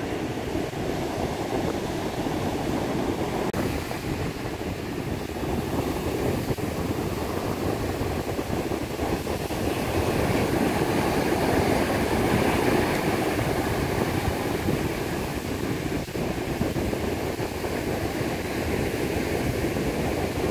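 North Sea surf breaking and washing up the sand: a steady rushing of waves that swells a little about ten seconds in.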